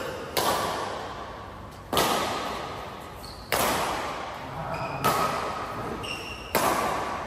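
Badminton rackets hitting a shuttlecock in a doubles rally: five sharp hits about a second and a half apart, each echoing in a large hall, with short high squeaks between the hits.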